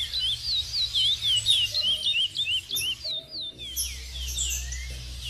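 Caged songbirds singing: a fast run of short, falling whistled notes, a brief break about three seconds in, then a few more falling whistles from a trinca-ferro (green-winged saltator).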